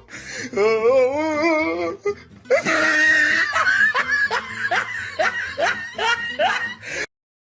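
Meme sound effect of a person laughing over music: a wavering held note first, then a run of short repeated laughs about twice a second that cuts off abruptly near the end.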